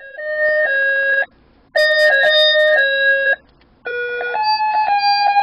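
Winnie the Pooh honey-pot alarm clock's alarm going off, playing an electronic melody in three phrases with two short pauses between them.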